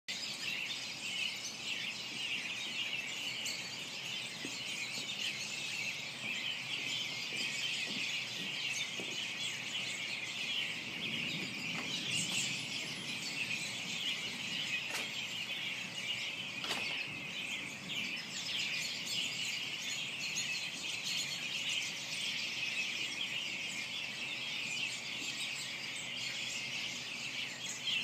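A large flock of American robins calling together in a tree: a dense, unbroken chatter of many overlapping chirps.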